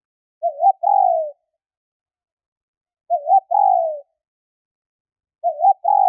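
Spotted dove hen cooing, the call that draws in males: phrases about two and a half seconds apart, each two short notes followed by a longer coo that falls in pitch. Two full phrases, and a third begins near the end.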